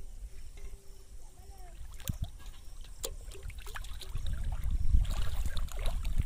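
Pond water sloshing and lapping as a person wades knee-deep and moves through it, with a few light knocks and a low rumble that grows louder in the second half.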